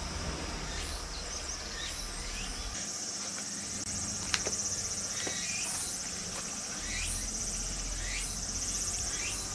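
Insects buzzing steadily in a high, even drone that grows louder about three seconds in, with a short rising chirp repeating about once a second. A single sharp click sounds a little after four seconds in.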